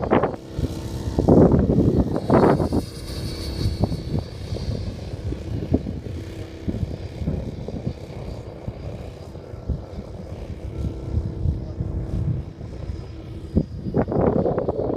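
Model airplane's propeller motor droning steadily, heard through gusty wind buffeting the microphone; the hardest gusts come in the first few seconds and near the end.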